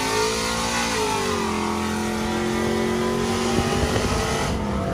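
Pickup truck engines running under way at a steady cruise, the engine note easing down a little about a second in and then holding steady, over constant road and wind noise.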